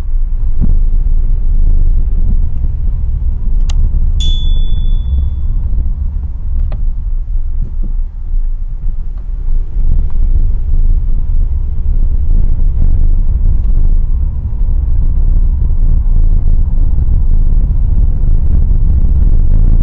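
Steady low rumble of a moving car's road and engine noise, heard from inside the cabin through a dashcam microphone. About four seconds in there is a click and then a short high electronic ding.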